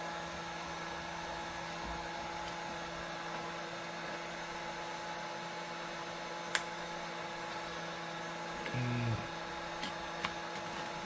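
Steady electrical hum with fan-like noise from a mains-powered appliance, with one sharp click about six and a half seconds in and a short low squeak near nine seconds.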